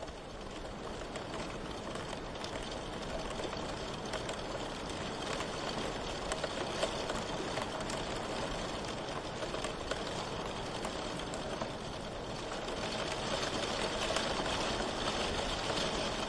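Steady rain falling, a dense patter of individual drops over an even hiss, growing slightly louder about two-thirds of the way through.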